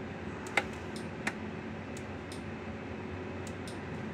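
A few short, sharp clicks about a second apart over a faint steady hum.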